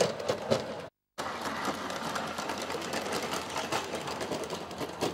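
Garden-scale model train running past on the track: a busy mechanical whir with rapid clicking of wheels over the rails. The sound drops out briefly about a second in.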